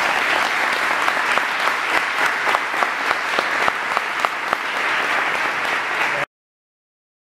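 Audience applause: a dense spread of clapping with some individual claps standing out. It cuts off suddenly about six seconds in.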